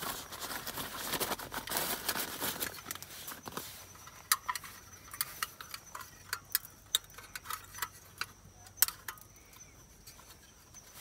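A folding portable camping gas stove being handled: rustling at first, then from about four seconds in a string of sharp metallic clicks and clinks as its pot-support arms are unfolded.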